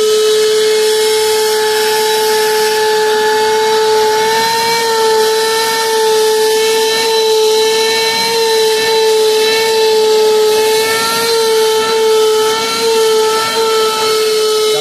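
Vacuum cleaner running, its corrugated hose and nozzle sucking dust and sand from car floor carpet: a loud steady motor whine over rushing air, the pitch wavering slightly.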